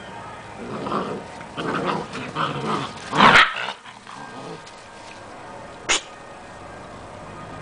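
Giant Schnauzer puppies growling and barking while play-fighting: a run of rough growls over the first few seconds, ending in a louder bark about three seconds in. A single sharp click comes near the end.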